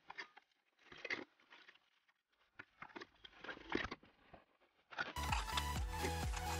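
Short irregular scrapes and clanks of a thin bent metal bracket being worked back into shape by gloved hands. About five seconds in, background music with a steady beat starts.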